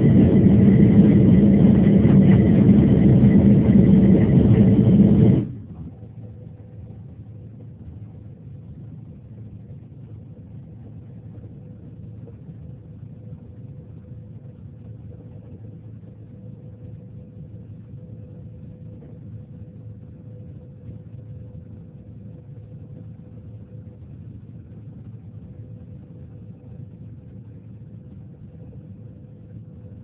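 Jet airliner cabin noise: a loud steady roar of engines and airflow during a fast ground roll, which cuts off abruptly about five seconds in. A much quieter steady cabin hum with a faint steady tone follows as the plane rolls slowly on the ground.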